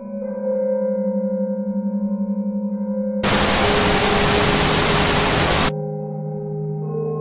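Eerie electronic drone of held tones over a wavering low hum, cut about three seconds in by a loud burst of white-noise static lasting about two and a half seconds. The static stops abruptly and the drone returns.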